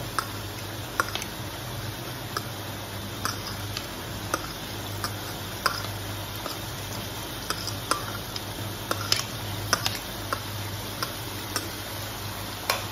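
Metal slotted spatula clicking and scraping against a steel wok and a plastic tray as diced pineapple is pushed into a sauce and stirred: irregular sharp clicks, one or two a second, over a steady low hum.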